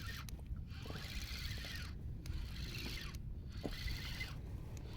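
Fishing reel being cranked to wind in line, a whirring, ratcheting sound in spells of about a second with short pauses between them, over a low steady rumble.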